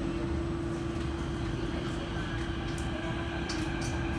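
Kawasaki–CRRC Sifang CT251 metro train heard from inside the car as it pulls away from a station: a steady hum and low rumble from the running gear, with the traction motors' whine rising in pitch as it picks up speed. This set has flat wheels.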